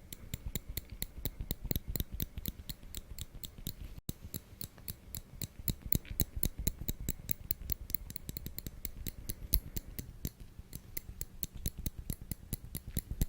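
Metal tweezers clicking close to the microphone: a quick, fairly even run of sharp metallic clicks, several a second, with a brief break about four seconds in.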